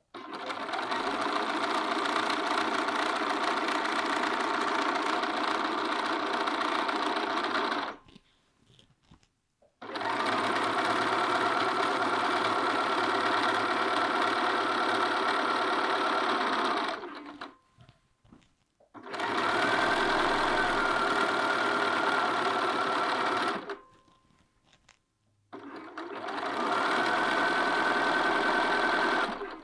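Bernina sewing machine stitching at a steady speed in four runs of several seconds each, stopping briefly between them. It is understitching close to the edge of a neckline's bias facing.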